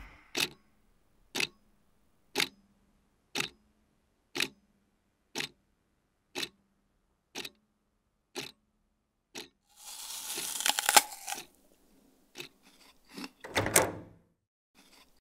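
Clock ticking about once a second, ten ticks that grow steadily fainter. Then comes a few seconds of rustling with sharp clicks, a few scattered clicks, and a louder knock near the end.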